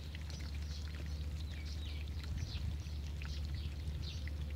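Outdoor ambience: scattered short bird chirps over a steady low hum, with a faint pouring or trickling of water.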